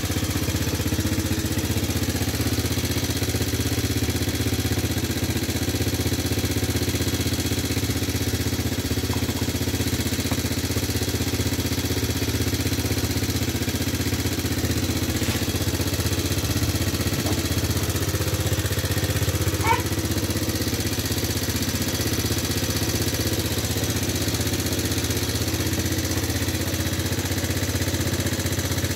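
Small ATV engine idling steadily and evenly, running well. A brief squeak sounds once, about twenty seconds in.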